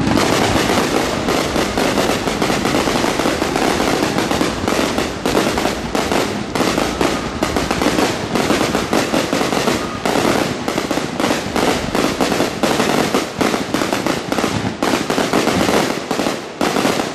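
Aerial fireworks going off in a rapid, continuous barrage of bangs and crackling, dense enough to be a display's finale. It cuts off suddenly near the end.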